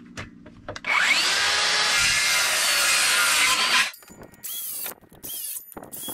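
Circular saw cutting into a 2x4: the blade spins up with a rising whine about a second in, cuts for about three seconds, then makes two or three short bursts as more passes are made to notch out the board.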